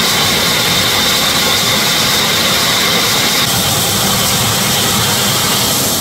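Horizontal band sawmill cutting through a large log: a loud, steady sawing noise with a high whine that fades about three and a half seconds in.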